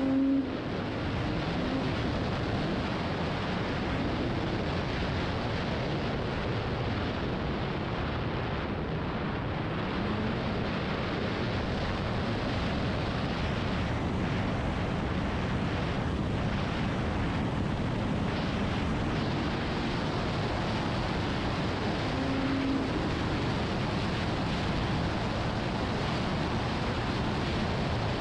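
Snowmobile engine running at trail speed under a steady rush of wind on the microphone, its pitch drifting gently up and down. Briefly louder right at the start.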